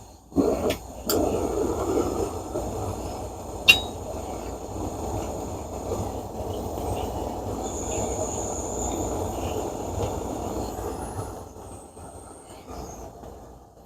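Optimus 8R stove burner lit after its alcohol pre-heat has burned off, catching about half a second in and then running with a steady rushing sound. There is a sharp click about four seconds in, and the burner sound eases near the end.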